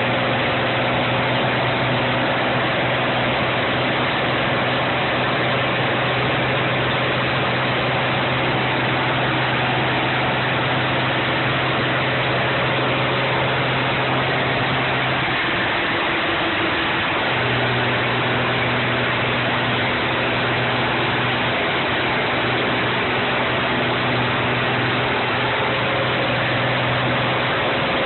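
M35A2 deuce-and-a-half's turbocharged multifuel diesel engine running steadily. Its tone breaks up and shifts for a couple of seconds about halfway through, then settles back.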